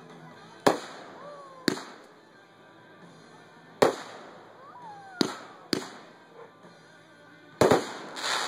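Aerial firework shells bursting overhead: a series of about seven sharp bangs at irregular intervals, two of them in quick succession near the end.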